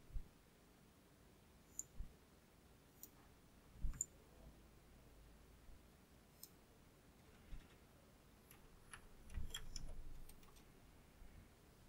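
Faint, scattered clicks and low taps from a computer mouse and keyboard in use, with a quick run of clicks about nine to ten seconds in.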